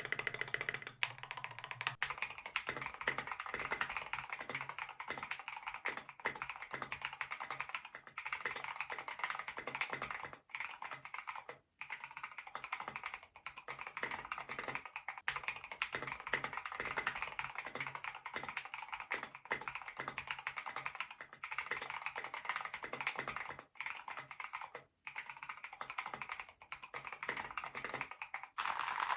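Fast, continuous typing on a mechanical keyboard fitted with Gateron linear switches, a dense run of keystroke clacks with a few brief pauses.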